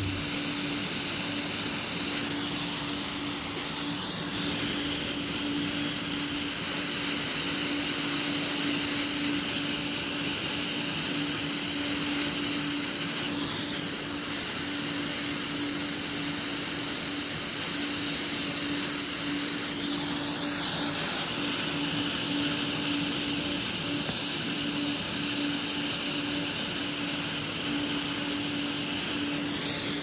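Air-acetylene brazing torch flame hissing steadily as it heats a copper joint to braze a filter drier into a refrigerant line, with a steady low hum underneath.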